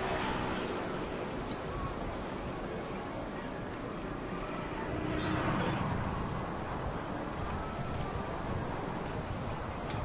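Passenger train running steadily, heard from inside the carriage as an even rumbling noise, with a steady high-pitched whine over it. The noise swells briefly about halfway through.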